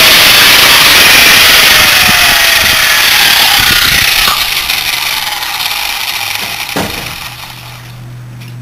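A power tool cutting through metal: a loud, harsh grinding noise with a whine that slowly drops in pitch, as if the motor is slowing under load. It fades away over the second half, leaving a low hum.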